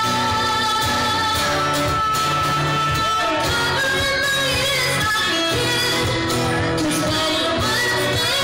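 A live band plays a song: a woman sings over an acoustic guitar, with a saxophone.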